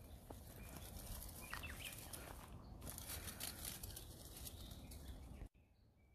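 Faint outdoor ambience with soft crackling rustle and a brief bird chirp about one and a half seconds in, cutting off suddenly near the end.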